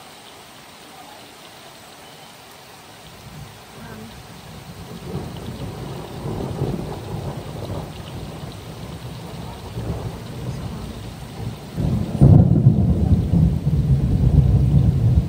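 Thunder in a thunderstorm: a deep rumble grows louder from about four seconds in, then a sudden loud clap comes about twelve seconds in and keeps rumbling, over a steady hiss of rain.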